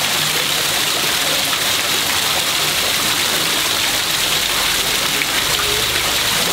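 Water from an artificial rock waterfall pouring and splashing onto stone and into shallow pools, a steady rush of falling water.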